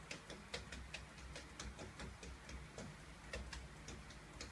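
Faint, irregular clicks or taps, roughly three a second, over a low background hum.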